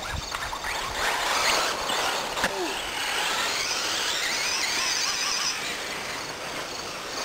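Electric 1/10-scale R/C buggies' motors whining high, the pitch sweeping up and down as they accelerate and brake around the track, with a sharp knock about two and a half seconds in.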